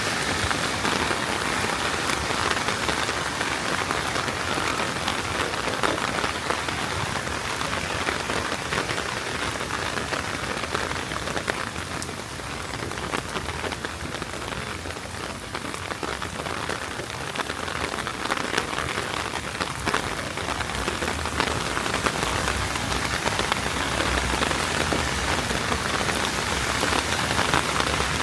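Heavy rain pouring steadily, a dense patter of drops hitting the street and surfaces, easing slightly for a few seconds midway before picking up again.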